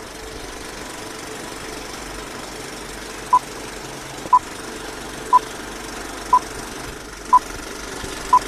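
Film countdown leader sound effect: a steady projector-like running noise with a short, high, single-pitched beep once a second, six beeps in all, starting a little over three seconds in.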